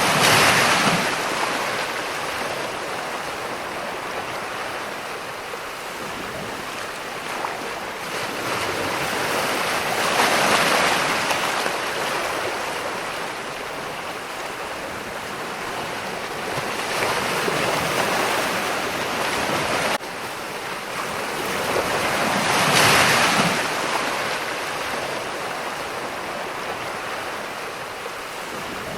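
Ocean waves washing in, about four slow surges, each swelling and fading, over a steady hiss of surf.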